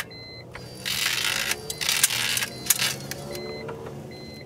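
The window regulator from a 2000 BMW 328i (E46), out of its door and powered by its motor, runs with a steady hum broken by clicks and two bursts of grinding noise in the first half. The regulator's cable is jumping, a fault the owner suspects comes from a frayed cable.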